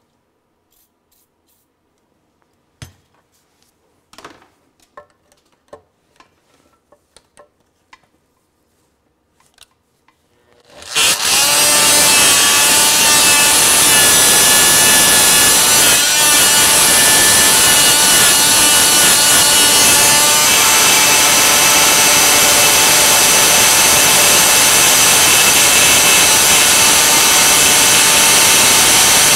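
A few light clicks and taps, then about eleven seconds in an oscillating multi-tool fitted with a cut-down wrench starts suddenly and runs loud and steady. It is vibrating a rust-frozen nut on a turbocharger's wastegate plate to break it loose without heat.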